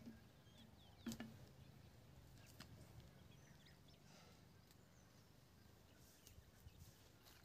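Near silence: faint outdoor background with a few distant bird chirps and a soft knock about a second in.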